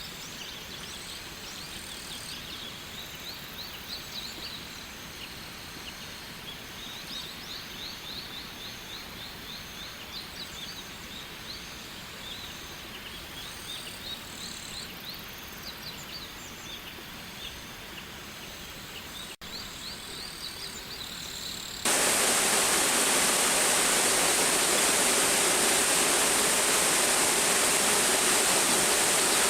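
Steady rush of flowing water with many high, short chirping calls repeating above it. About three-quarters of the way through, the chirps stop and a much louder, dense rush of a waterfall close by takes over abruptly.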